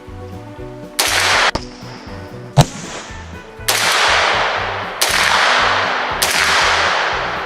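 Semi-automatic AK-pattern rifle in 7.62x39mm fired about five times at irregular intervals, each shot sudden with a long rolling echo that dies away over about a second; the sharpest, loudest crack comes about two and a half seconds in. Background music plays underneath.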